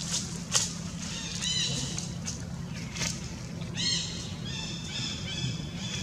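Dry leaves crackling as a baby macaque handles them, with short high chirping calls several times, a run of them near the end.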